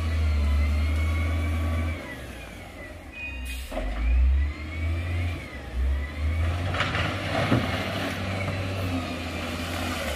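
Heavy diesel construction machinery running and revving, with a whine that rises and falls. A knock comes about three and a half seconds in, and a clattering noise starts about seven seconds in.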